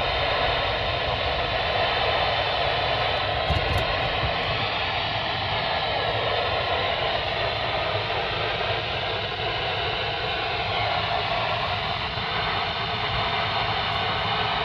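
Weather-radio receiver hissing with static on a weak signal, a steady noisy rush with faint, slowly wavering tones in it.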